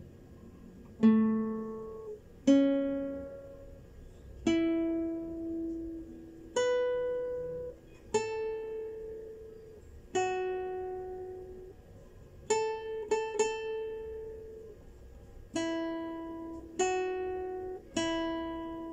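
Classical guitar playing a slow melody one plucked note at a time, about a dozen single notes each left to ring and fade, with a quick run of three or four notes about two-thirds of the way through. It is the first phrase of the carol picked out on single strings over an A minor chord shape, as a fingering demonstration.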